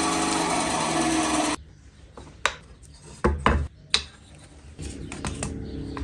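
A loud power tool runs and cuts off about a second and a half in. A few sharp knocks follow, then from about five seconds in a quieter, steady rasping as metal is filed or rubbed by hand.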